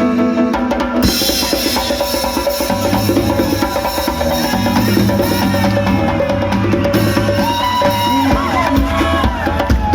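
Band music with drum kit, percussion and a steady bass line. A wavering melody line comes in about three quarters of the way through.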